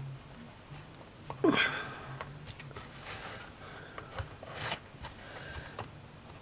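Quiet handling noises: faint clicks and taps of fingers pressing thin wooden strips into a small chipboard frame, over a low steady hum. A short breathy sound, falling in pitch, comes about one and a half seconds in.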